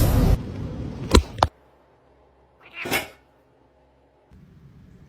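A cat meows once, briefly, about three seconds in. Before it come a noisy clatter and two sharp knocks, then it goes almost silent.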